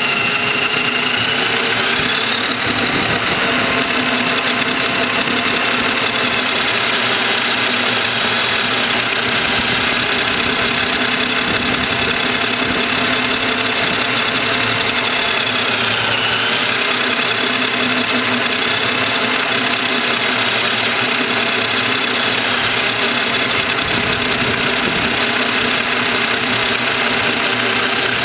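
Brushless electric motor and geared four-wheel-drive drivetrain of an Axial Wraith 1/10 scale RC rock crawler, picked up by a camera mounted on the car: a steady mechanical whine whose pitch rises and falls with the throttle near the start and again about halfway through.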